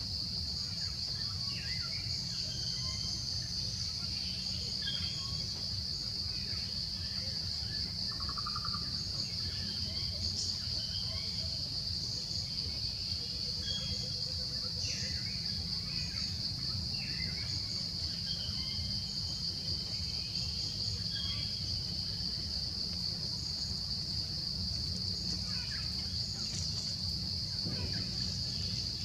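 Steady high-pitched insect drone, with scattered short bird chirps over a low rumble.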